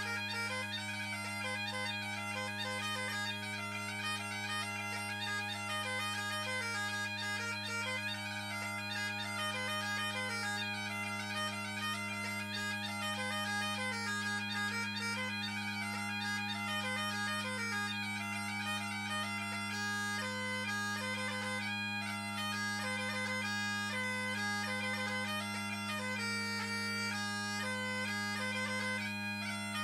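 Great Highland bagpipe played solo: a quick chanter melody over steady, unbroken drones, the drones tuned to the chanter's low G instead of the usual low A, giving the pipes a G-major sound. About twenty seconds in, the melody turns to shorter, more clipped notes.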